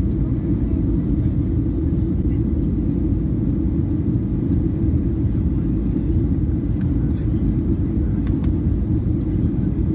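Steady low rumble of an airliner cabin during descent: engine and airflow noise heard from a window seat over the wing.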